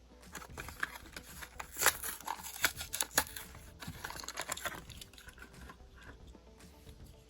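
Packaging of a Matchbox diecast car being crinkled and torn open by hand, with irregular crackles and sharp clicks, busiest in the middle and thinning out near the end.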